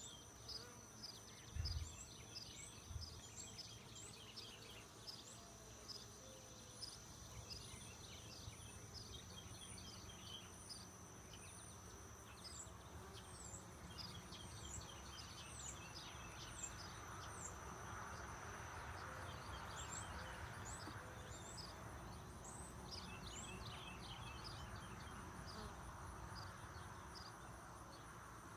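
Honey bees buzzing faintly around an open hive, the buzz swelling in the second half. A steady high insect whine and many short, high falling chirps run over it, with two low thumps about two and three seconds in.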